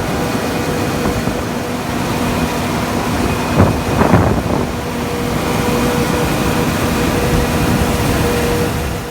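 Farm machinery running steadily, a loud engine-like rumble with a constant hum, with two short knocks about three and a half to four seconds in.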